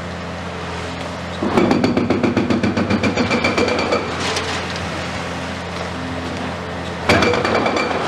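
Hydraulic breaker on a Komatsu PC490 long-front demolition excavator hammering the concrete of a bell tower in rapid, evenly spaced blows for about two and a half seconds, then again briefly near the end, over the steady running of the excavator's diesel engine.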